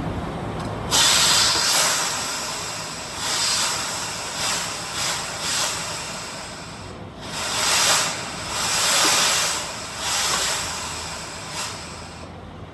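Air-powered bearing press hissing in repeated surges as compressed air drives it to push an old bearing and seal off an axle trunnion. The hiss starts suddenly about a second in and eases off near the end.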